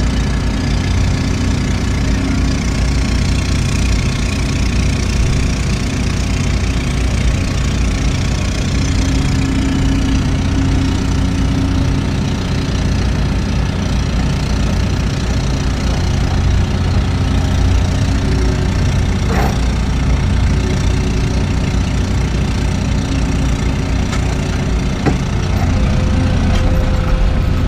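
Heavy equipment diesel engine running steadily, with a short metallic clank about two-thirds of the way through and a single knock a little later.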